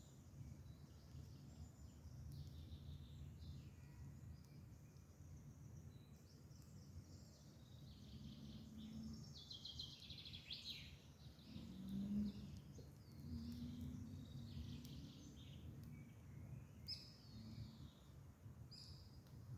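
Several songbirds singing and chirping, with varied short phrases and trills throughout, over a faint low rumble of background noise.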